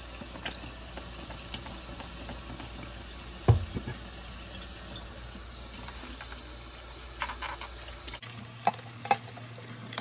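Tap water running into a sink while a plastic microwave egg poacher is washed and scrubbed with a sponge, with light clicks of handling. A single sharp knock comes about three and a half seconds in, and a couple more near the end.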